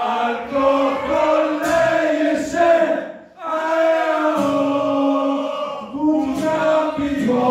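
Male vocalist chanting a sung refrain into a microphone, with the crowd singing along, in two phrases with a short break about three seconds in.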